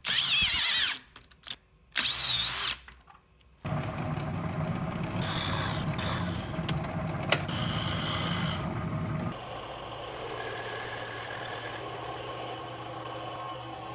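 Shop power tools in quick succession. First come two short bursts of a power tool spinning with a wavering high whine. Then a drill press runs steadily, boring into a hardwood block, and about nine seconds in the sound drops to a quieter, steady run of a horizontal metal-cutting bandsaw slicing through a round steel bar.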